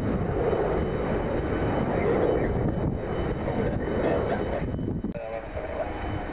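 Jet airliner engine noise, steady and loud, falling away about five seconds in.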